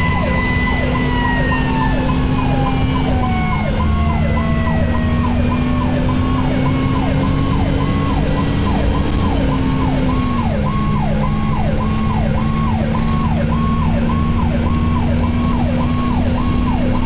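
Fire engine's siren cycling up and down about one and a half times a second, heard from inside the cab. A second siren tone slides slowly down in pitch over the first several seconds. Underneath is the truck's engine drone, which steps down in pitch twice.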